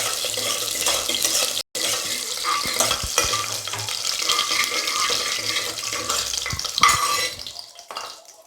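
Mustard seeds, cumin, peppercorns and dried red chillies sizzling and crackling in hot oil in a pan while being stirred. The sizzle dies down near the end.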